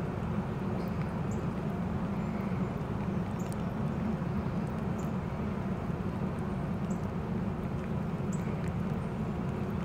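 Steady low outdoor rumble, with a few faint light ticks scattered through it.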